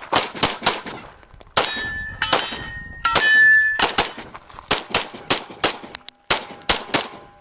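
Rapid pistol fire from a compensated 9mm Major Open-division pistol: shots in quick pairs and bursts, with gaps as the shooter moves between targets. Steel targets ring with a sustained tone after hits, loudest a little past the midpoint.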